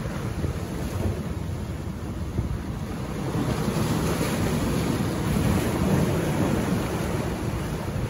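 Ocean surf breaking over shoreline rocks: a continuous rush of foaming water that swells louder as a wave crashes on the rocks about halfway through, then eases toward the end.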